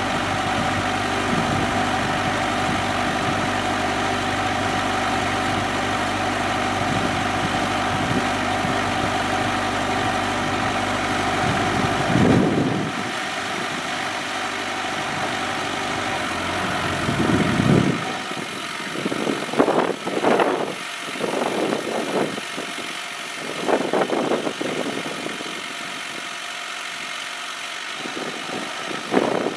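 Kubota B7800 diesel compact tractor running steadily while its PTO-driven three-point-hitch post-hole auger turns in the ground. The engine note changes about 12 seconds in and drops further about 18 seconds in. After that the sound comes and goes in short irregular surges while the auger is lifted out of the hole.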